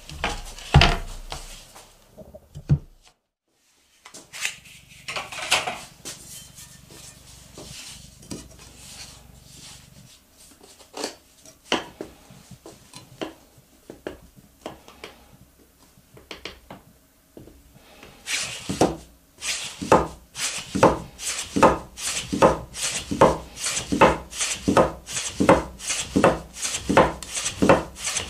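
Soba-kiri knife cutting folded buckwheat noodle dough against a wooden guide board, each stroke ending in a knock of the blade on the wooden board. Scattered knocks and scraping come first, then about two-thirds of the way through a steady rhythm of about two cuts a second sets in.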